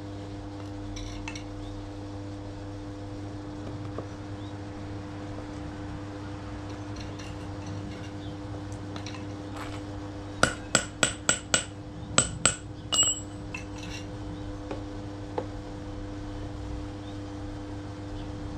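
A quick run of about nine sharp metallic clinks with a bright ring, a little past the middle, over a steady low hum.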